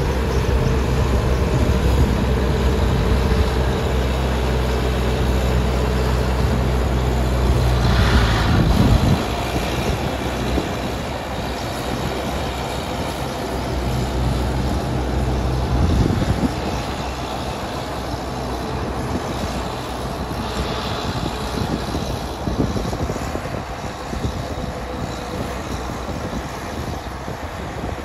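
An engine driving rice harvesting machinery runs with a strong low hum for about the first nine seconds. The hum then drops away and the machine keeps running more quietly and roughly.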